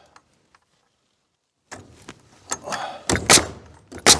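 Nail gun firing into a wooden trim board: a few sharp shots after a quiet start, the two loudest near the end.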